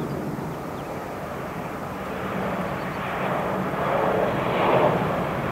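Airbus A320 airliner's jet engines running as it rolls along the runway after landing. The noise swells about three seconds in and is loudest near the end as the aircraft passes closest.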